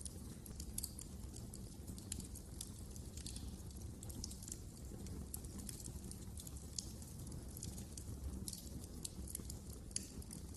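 Wood fire burning in a fireplace: frequent irregular sharp crackles and pops over a steady low rumble of the flames.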